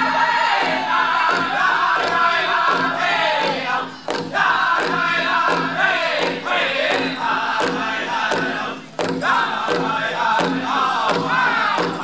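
A pow wow drum group singing a high, wavering chant in unison over a steady beat on a large drum, about two strokes a second, with two short breaks in the song.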